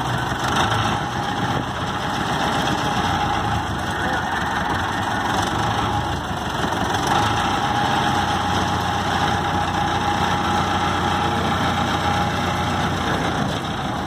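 Vintage road roller's engine idling steadily, freshly cold-started after a long lay-up.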